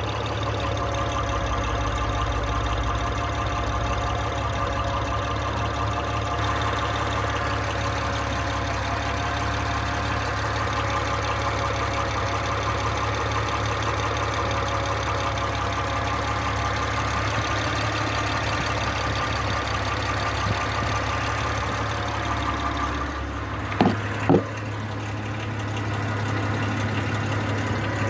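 Mitsubishi Pajero 4's 6G74 3.5-litre V6 idling at running temperature, with the knocking and ticking it makes only when hot. Two sharp clicks about 24 seconds in.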